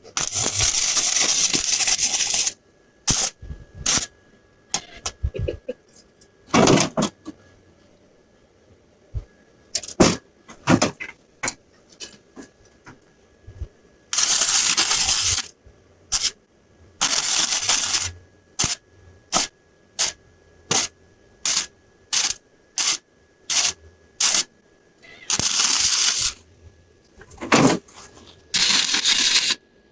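Welder arc crackling in bursts of one to two and a half seconds, with many short tack stabs between them, while welding thin exhaust pipe. The welder thinks it blew through the pipe.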